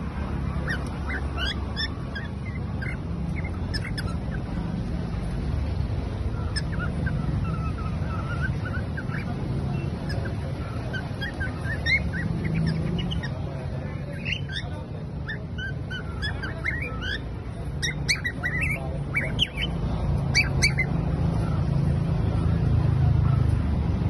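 Cockatiels chirping: short, high rising and falling chirps in scattered bursts, busiest in the second half, over a steady low background rumble.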